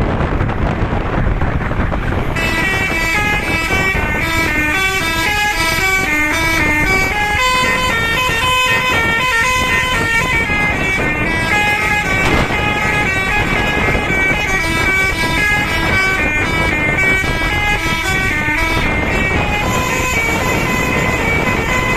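Bus telolet horn of the basuri type playing a tune of quickly changing notes, starting about two seconds in over a low rumble.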